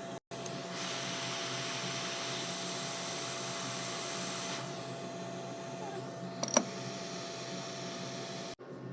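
Steady whooshing hiss of a small fan-driven blower running, with a brief pair of sharp clicks about six and a half seconds in; the hiss cuts off abruptly near the end.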